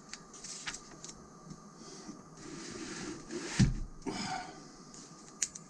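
A page of a thick glossy magazine being turned by hand: paper rustling and swishing, with a dull thump about three and a half seconds in as the page and magazine are handled.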